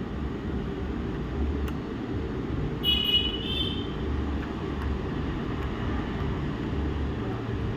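Steady low rumble of road traffic, with two short high-pitched vehicle horn toots about three seconds in.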